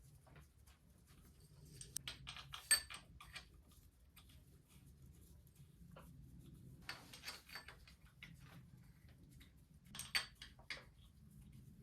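Metal tools and engine parts clinking and rattling as they are handled, in three short clusters of sharp clicks over a low steady hum.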